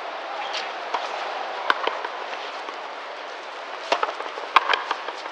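Sharp smacks of a frontenis rally, the rubber ball struck by rackets and hitting the frontón wall: one crack about two seconds in, then several in quick succession near the end.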